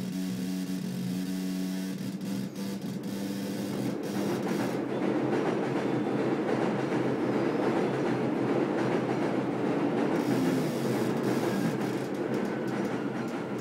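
Chaotic oscillator circuit played through a loudspeaker: a steady buzzing tone with overtones that breaks up about four seconds in into a rough, irregular noisy buzz as the circuit goes chaotic.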